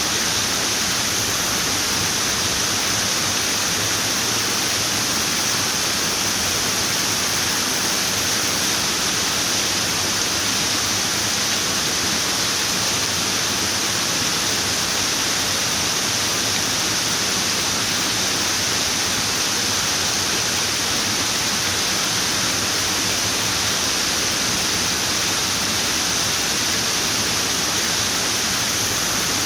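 Running water: a steady, even rush of falling water that does not change.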